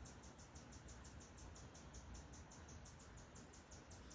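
A faint, unbroken train of short high chirps, about seven or eight a second, repeating evenly. The recorder takes it for a bird calling non-stop.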